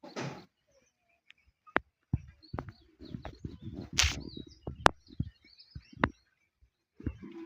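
Irregular knocks and clicks with low thumps, a short hiss just after the start, and a louder scraping or rustling burst about four seconds in.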